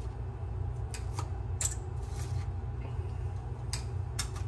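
A handful of faint clicks and rustles of someone rummaging through parts and tools looking for a piece of wire, over a steady low hum.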